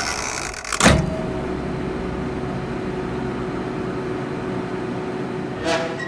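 Microwave oven switched on: a sharp click about a second in, then a steady electric hum as it runs, cut by another click just before the end.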